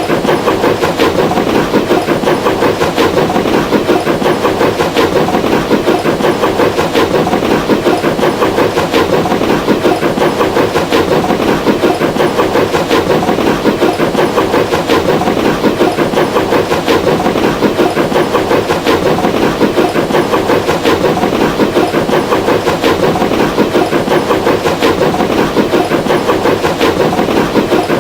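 Train running steadily, a continuous rumble with a regular rhythmic clatter that does not change.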